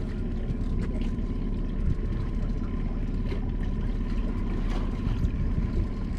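A boat's outboard motor running steadily, a low rumble with a faint steady whine above it and a few faint ticks.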